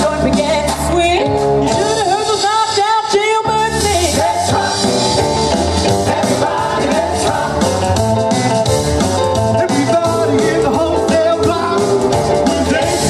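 A male vocal group singing an upbeat 1950s-style rock-and-roll song with musical accompaniment, amplified through stage loudspeakers.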